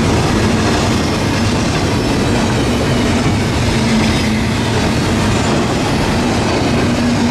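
Double-stack container freight train passing close by: a steady, loud rumble of steel wheels on the rails, with a low hum that comes and goes.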